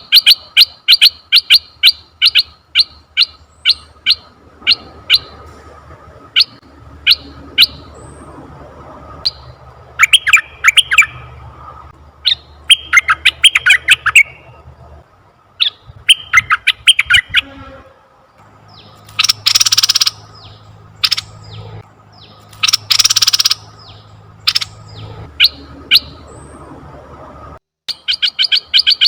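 Asian red-eyed bulbul calling: a fast run of short, sharp notes that slows down, then scattered notes and brief chattering clusters, with two longer, noisier bursts about three seconds apart in the middle. After a short break near the end, the fast notes start again.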